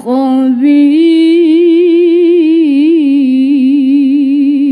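A woman's solo voice in melodic Quran recitation (tilawah), drawing out one long ornamented phrase whose pitch wavers and turns. It breaks briefly right at the start, then holds on without a pause.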